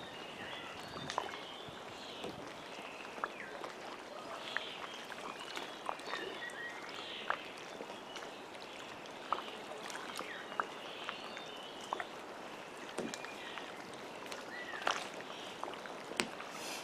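Small waves lapping and splashing in shallow lake water, with many short sharp splashes, and birds chirping in the background.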